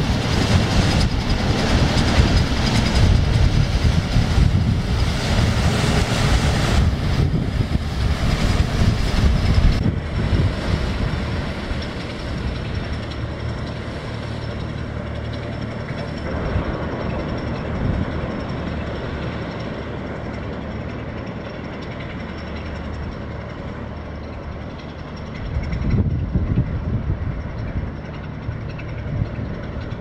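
Deutz 800 hp diesel engine of an inland cargo ship running as the vessel passes close by: a steady low drone with a thin high whine above it. Wind buffets the microphone during the first ten seconds, and the low rumble swells again about 26 seconds in as the propeller wash churns at the stern.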